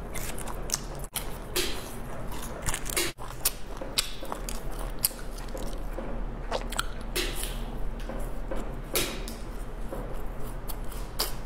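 Close-miked eating sounds: a small plastic snack wrapper crinkling as it is opened, then biting into and chewing a flaky pastry, with many short, sharp clicks and crackles scattered throughout.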